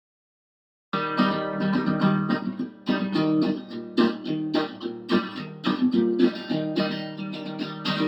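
Acoustic guitar strummed in a steady rhythm, starting suddenly about a second in after silence: the instrumental intro of a song.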